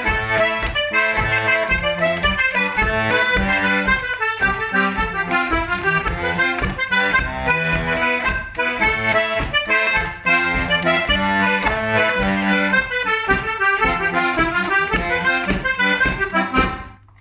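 G/C diatonic button accordion (melodeon) playing a lively morris dance tune, the melody over bass notes and chords on the beat. The playing stops on a last chord just before the end.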